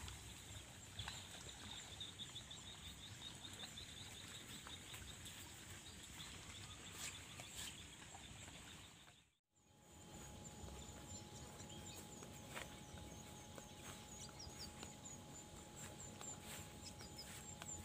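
Near silence: faint outdoor ambience with rows of rapid, faint high-pitched chirping calls. The sound cuts out to dead silence for a moment about halfway through.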